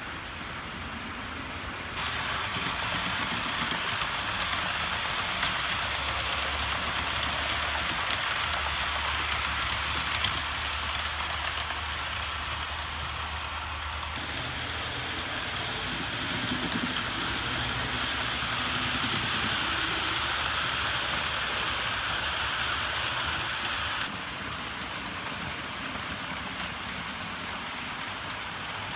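Model trains running on layout track: a steady hissing rumble of wheels and motors. The level and tone shift abruptly about two seconds in, midway and again near the end.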